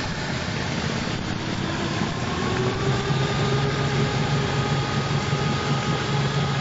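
Boat outboard motor running steadily at speed, a low engine hum that grows a little stronger about halfway through, over a wash of water noise.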